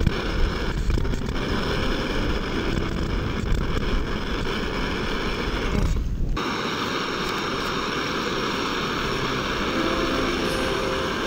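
Steady rushing hiss of a gas-canister camp stove burning under a pot. For the first six seconds wind rumbles on the microphone, then it stops abruptly.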